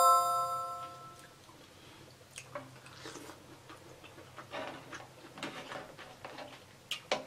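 A bright chime rings and fades over about a second, a subscribe-button sound effect. After it come faint, scattered wet clicks of close-up eating: chewing and mouth sounds, with the crab legs and sauce being handled.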